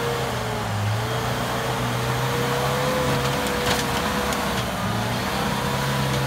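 Turbo-diesel engine of an LN106 Toyota Hilux working steadily under load as the truck crawls up a steep rocky bank, with a steady, slightly wavering whine above the engine note. A few sharp clicks come a little past the middle.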